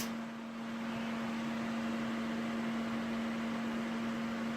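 A homemade solder fume extractor's fan running steadily: an even airy rush with one constant humming tone. It is quite a powerful fan, drawing air in through the filters at the back of its shroud.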